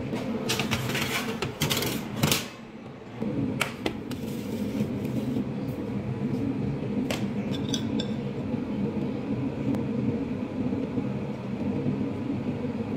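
A steady low hum, with a few sharp clicks and clatters in the first few seconds.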